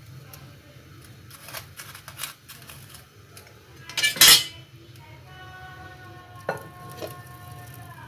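Metal kitchen tongs and a lump of hot charcoal knocking against a glass bowl and foil cup, with one loud clatter about four seconds in among a few lighter clicks.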